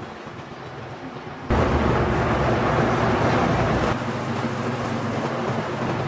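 Steady rushing rumble of factory machinery. It cuts in abruptly much louder about a second and a half in and drops back somewhat about four seconds in.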